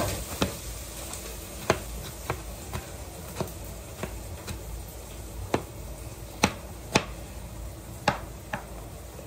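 Chef's knife dicing tomatoes on a plastic cutting board: about a dozen sharp, irregularly spaced taps of the blade hitting the board, over a low steady hum.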